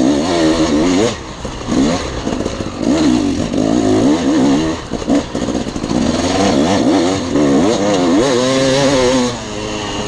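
Dirt bike engine running under hard riding, its pitch climbing and falling over and over as the throttle is opened and closed, with brief drops in level about a second in and again near the end.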